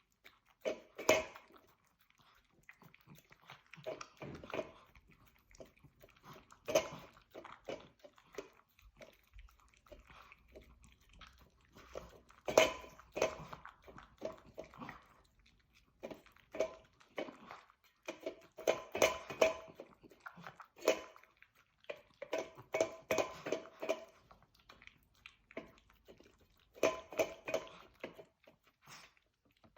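A Maltese dog eating a dog birthday cake: bursts of rapid, clicky chewing and mouth sounds, coming in clusters with short pauses between them.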